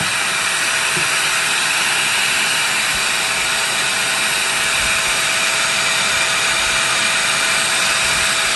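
Vacuum running steadily as dust extraction for a jigsaw, the saw no longer cutting: an even rushing hiss of air with a faint steady whine.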